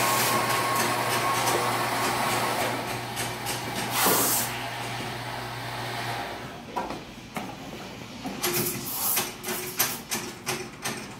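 Espresso machine running with a steady hum and hiss that swells briefly about four seconds in and stops about six seconds in. It is followed by scattered clinks and knocks of cups and metal pitchers on the counter.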